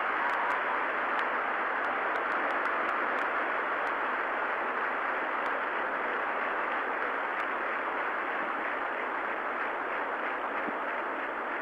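Large stadium crowd cheering: a steady, even din that eases off slightly towards the end.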